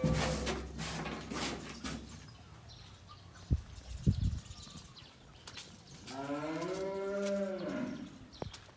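A cow mooing once, a single call of about two seconds near the end that rises and falls smoothly in pitch. Before it come a burst of rustling noise and two sharp knocks.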